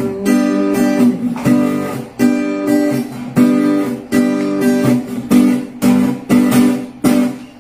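Acoustic guitar strummed in a steady rhythm, a chord about every half second, as the closing instrumental bars of a song. The last chord rings out near the end.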